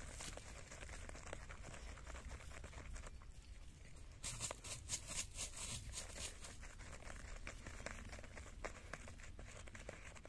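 Dog digging a hole in dry soil with its head down in it: scratching and scraping of earth and dry leaves, with a quick run of louder rustles about four to six seconds in.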